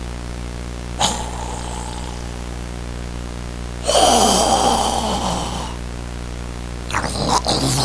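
Harsh, growl-like vocal sounds over a steady low hum: a short sharp one about a second in, a longer one falling in pitch around four seconds in, and more near the end.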